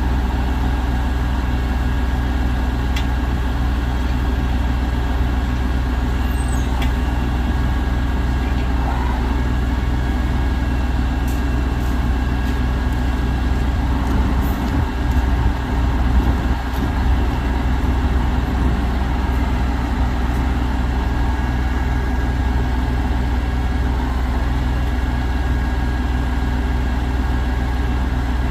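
Cummins ISC 300 six-cylinder diesel engine of a Peterbilt 335 truck idling steadily, with a brief unsteady swell in level around the middle.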